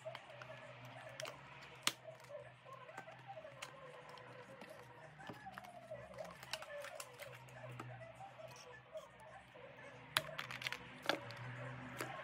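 Hands handling and opening a small cardboard cosmetics box, with light ticks and taps from the card and packaging. A few sharper clicks come near the end as a small plastic jar is taken out and handled.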